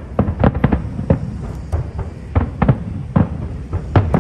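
Fireworks display: aerial fireworks bursting in a rapid, irregular series of a dozen or so sharp bangs, some in quick clusters.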